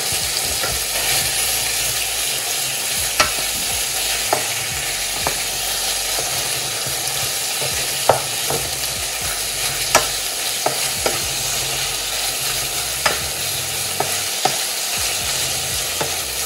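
Beef mince sizzling as it fries in a pan, with a steady hiss, while a wooden spatula stirs and breaks it up, knocking sharply against the pan every second or two.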